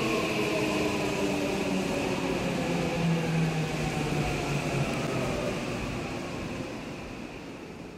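Electric commuter train pulling into a station, its traction motors whining down in pitch as it brakes, over steady wheel and rail noise. The sound fades out toward the end.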